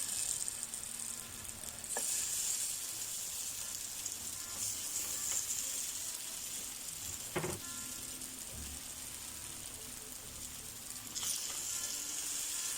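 Marinated chicken frying in a little oil in a pan, a steady sizzle that swells about two seconds in and again near the end, with two light knocks.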